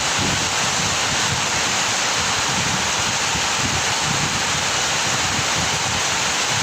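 Heavy rain pouring steadily, with wind gusting against the microphone.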